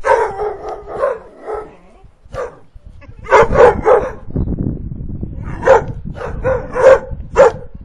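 Puppies barking repeatedly, in quick bursts of several barks close together.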